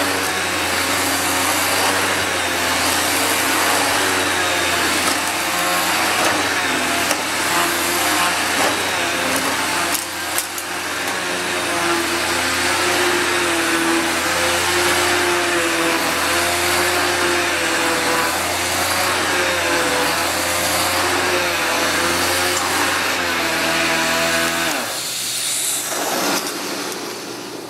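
Astro Vac central vacuum running through its hose with the electric power head attached: a steady rush of suction under a motor hum whose pitch wavers slowly. About 25 seconds in it switches off and winds down with a falling pitch.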